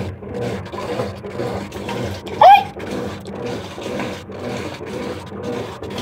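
Brastemp BWK12 top-load washing machine agitating a tub of water and clothes, churning back and forth in a steady rhythm of about two strokes a second with water sloshing. About two and a half seconds in, a short, loud squeal glides up and back down in pitch.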